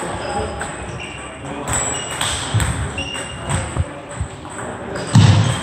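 Table tennis play in a large hall: ping-pong balls clicking off bats and tables, short shoe squeaks on the wooden floor, and a louder thump about five seconds in.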